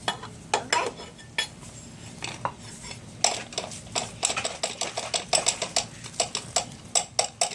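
Metal utensils clinking and scraping against dishes in quick, irregular taps, sparse at first and coming several a second from about three seconds in.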